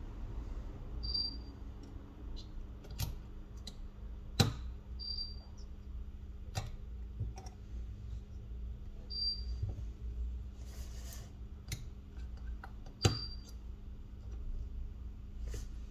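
Small tools clicking and tapping on the parts of a Huawei Y6 2019 smartphone being taken apart: about eight sharp, irregular clicks, two of them much louder. A short high chirp repeats about every four seconds over a steady low hum.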